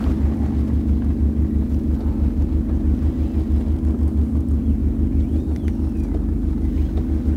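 Boat engine running steadily, a low drone with a fast, even throb underneath.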